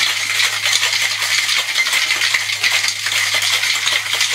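Ice cubes and liquid rattling hard inside a metal cocktail shaker during a vigorous shake: a fast, continuous clatter.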